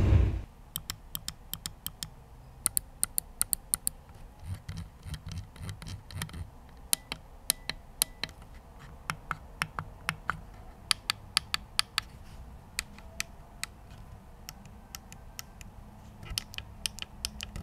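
Mad Catz R.A.T. DWS wireless gaming mouse buttons clicked over and over: sharp clicks in irregular quick runs with short pauses between them.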